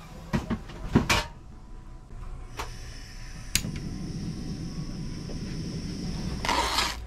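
SOTO gas-canister camp stove being lit under a stainless kettle: metal clinks and knocks as the kettle is set on the pot supports, a steady hiss of gas once the valve is opened, a sharp igniter click, then the burner flame running steadily. A brief rustle near the end.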